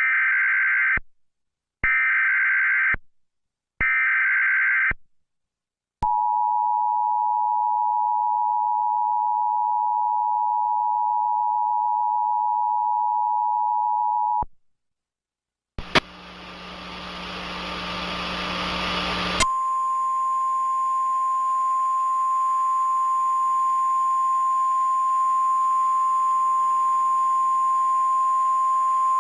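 Emergency Alert System tones: three short bursts of screechy SAME data header, then the steady two-tone EAS attention signal held for about eight seconds. After a short gap and a click comes a burst of static hiss, then a single steady warning tone, the NOAA Weather Radio alarm, over hiss for about ten seconds.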